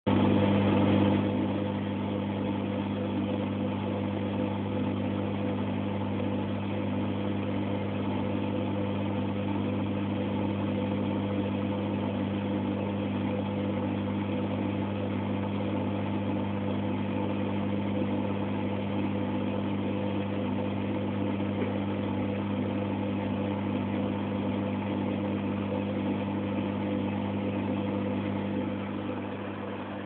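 Microwave oven running: a steady low electrical hum, a little louder for the first second.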